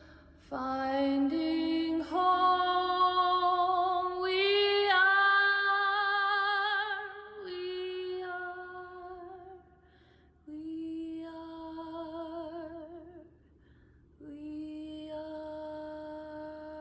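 A woman's soprano voice singing long, held wordless notes, several pitches sounding together in harmony, with vibrato. It comes in three phrases with short breaks between them.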